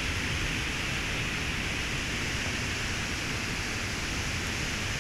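A steady, even rushing hiss with no separate crackles or pops.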